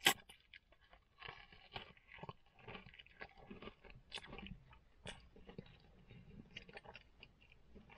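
A bite into a meat pie's thick pastry crust, one sharp crunch right at the start, then chewing close to the microphone with many small clicks and crunches.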